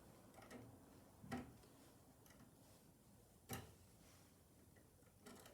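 Near silence with a few faint, sharp clicks, the clearest a little past a second in and at about three and a half seconds: pliers and wire being handled while bending a wire.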